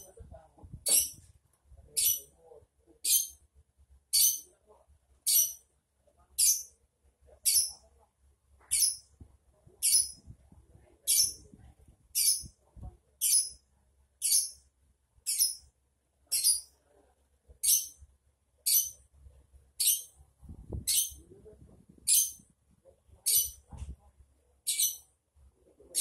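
Lovebird in a long ngekek: sharp, high-pitched chirps repeated steadily about once a second.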